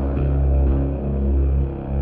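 Background music: sustained deep bass tones under held chords, changing note a few times.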